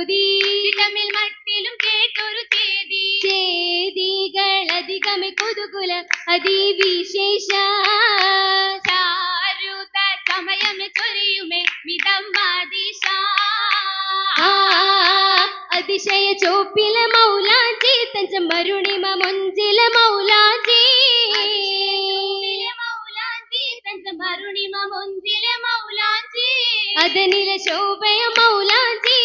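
Girls singing an Oppana song in chorus into a microphone, with the dancers' sharp rhythmic hand-claps cutting through the singing.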